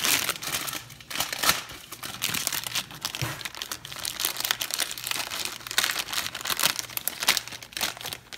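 Crinkling and rustling of a frozen burrito's white wrapper sleeve as hands pull it open and slide the burrito out, irregular throughout, with sharper crackles about a second and a half in and again near the end.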